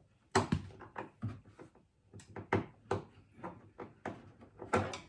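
Irregular sharp clicks and knocks, about ten of them, the loudest near the start and near the end: a screwdriver and hands working the screws out of a freezer's plastic inner back panel.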